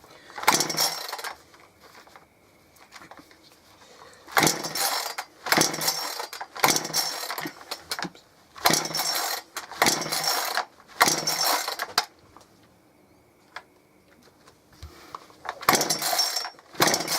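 Two-stroke chainsaw being pull-started: about nine quick rips of the recoil starter cord in three or four runs, the engine turning over without catching.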